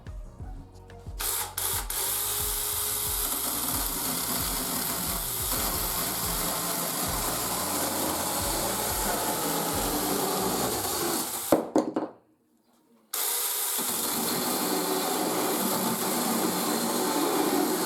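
Cordless 18 V mini chainsaw running while cutting through wood: a steady sound that starts about a second in and lasts about ten seconds, stops for about a second, then runs again for about five seconds.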